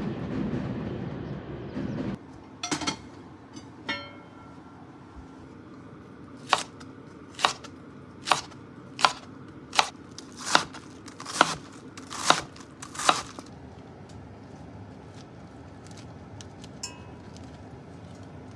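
Kitchen knife chopping through a head of napa cabbage onto a wooden cutting board: nine even cuts a little under a second apart.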